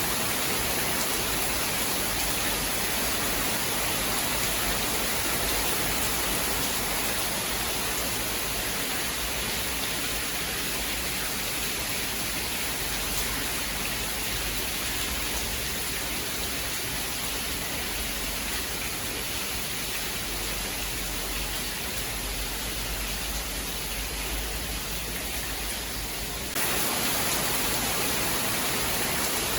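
Steady rain, an even hiss with no thunder. About three seconds before the end it abruptly gets louder.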